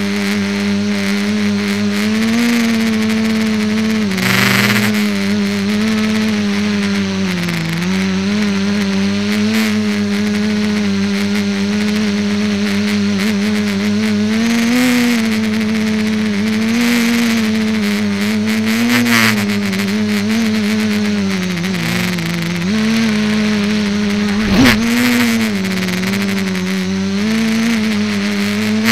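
Electric motors and propellers of an ETFD2 flying-disc multicopter, heard from its onboard camera: a steady buzzing hum whose pitch rises and dips as the throttle changes. A single sharp knock comes about three-quarters of the way through.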